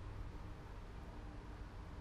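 Quiet room tone: a low steady hum with a faint higher tone above it, and no distinct strokes from the marker being dabbed on the wood.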